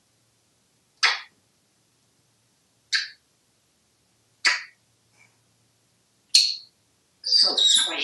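African grey parrot calling: four short, sharp calls spaced about one and a half to two seconds apart, then a longer, more varied vocalization near the end.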